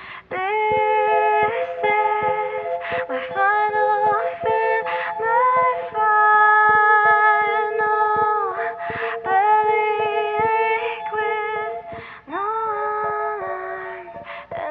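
A woman singing without clear words, holding long notes and gliding between them, as part of a song.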